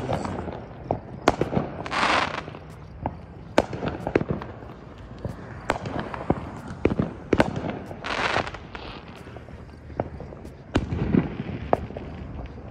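Aerial fireworks going off: an irregular run of sharp bangs and pops, with two short hissing bursts, about two seconds in and about eight seconds in.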